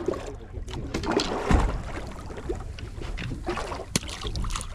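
Water slapping against the hull of a small drifting boat, with a low rumble of wind on the microphone and a couple of sharp knocks.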